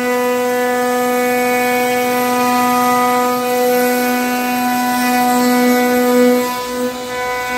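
CNC router spindle running at a steady high speed, giving a steady whine with a light hiss as the bit routes a groove in a wooden door panel. The level dips and wavers briefly near the end.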